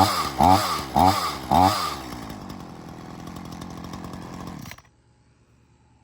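Ryobi RY3716 37cc two-stroke chainsaw revved in quick throttle blips, about four in the first two seconds, each rising and falling in pitch. It then settles to a lower, steadier idle that cuts off abruptly a little before the end.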